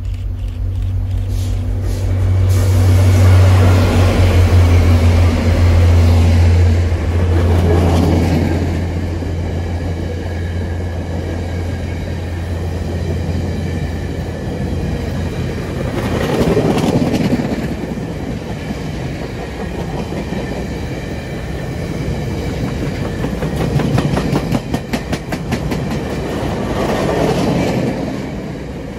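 A VIA Rail passenger train passing close by. The diesel locomotive's low engine drone is loudest a few seconds in and fades by about halfway. Then the stainless steel passenger cars roll past, their wheels clicking over the rail joints in repeated runs as each set of wheels goes by.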